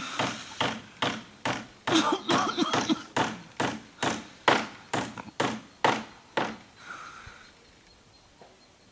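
A steady beat of sharp knocks, about two a second, which stops about six and a half seconds in. Faint voices come in briefly partway through.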